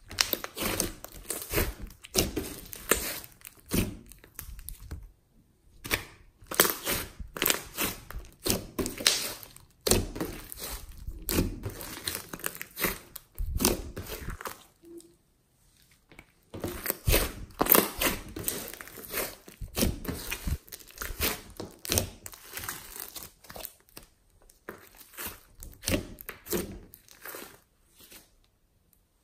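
Hands squeezing, stretching and folding a large lump of glossy slime: sticky crackling and popping as air pockets in the slime are pressed out, in bursts with brief pauses about five and fifteen seconds in and near the end.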